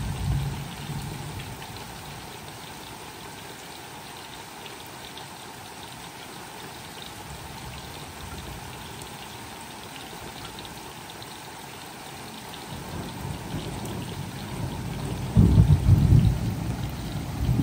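Steady rain falling, with a low roll of thunder that builds in the last few seconds and peaks near the end; a shorter rumble fades away at the very start.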